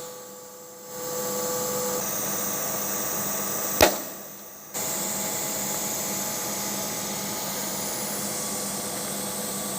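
A lathe running steadily, a machine hum with a few fixed tones, as nylon wheel stock is machined. A single sharp knock comes about four seconds in.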